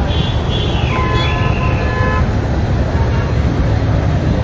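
Traffic jam street noise: a steady low rumble with a wavering high tone in the first second, then a car horn held for about a second.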